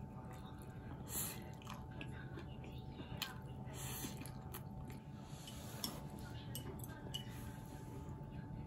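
Close-miked eating sounds: chewing of spicy bibim-myeon noodles and grilled pork belly, with scattered light clicks of chopsticks against the bowl, over a faint steady hum.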